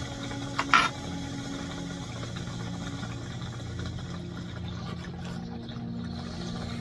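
Bong water bubbling steadily through matrix percolators in two glass water pipes as vapour is drawn through both at once, cutting off near the end. A single sharp click about a second in is the loudest sound.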